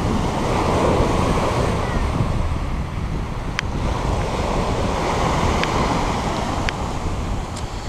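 Sea waves breaking and washing up a pebble beach, a steady surging wash, with wind buffeting the microphone as a low rumble. A few faint clicks.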